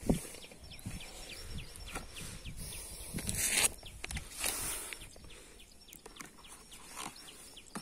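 Handling of a cardboard box and a plastic pouch, with a louder rustle about three and a half seconds in and another a second later. Behind it, a steady series of short high chirps, about three a second.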